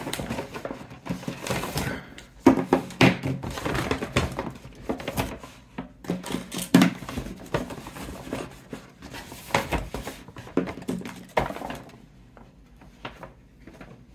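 Plastic mobile phones and packaging handled on a desktop: irregular clacks and knocks with rustling in between, thinning out to a few faint ticks about twelve seconds in.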